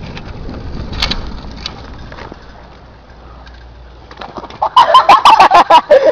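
Low rumble of wind and motion on a camera carried along a street, with a short knock about a second in. About four and a half seconds in, a person's voice breaks out in loud, rapid, hooting cries, several a second.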